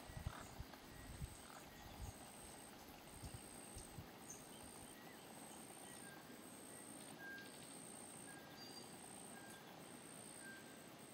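Near silence: faint outdoor ambience. A faint high-pitched chirp repeats a little more than once a second, and a few soft low thumps come in the first four seconds.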